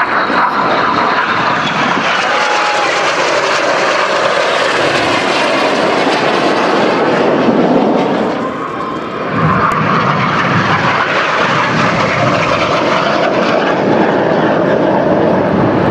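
BAE Hawk T1 jets passing low and loud, their turbofan noise filling the air, dipping briefly a little after halfway and then surging again as more jet noise sweeps through.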